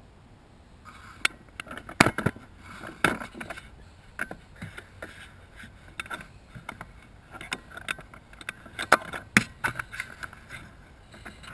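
Hammer knocking a pin out through a trolling-motor foot pedal: irregular sharp metal taps and clatter, with the hardest strikes about two seconds in and twice around nine seconds.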